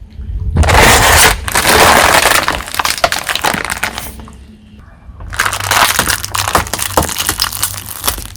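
A car tyre rolling over brittle objects and crushing them: two long spells of loud crackling and snapping, the first near the start and the second about halfway through.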